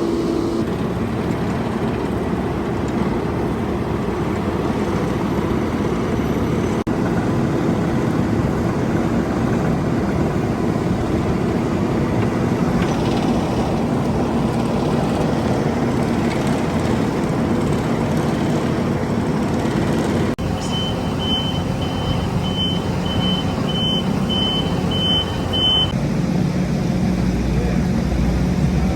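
Diesel engines of heavy road-paving machinery running steadily. About two-thirds of the way through, a reversing alarm beeps about twice a second for roughly five seconds.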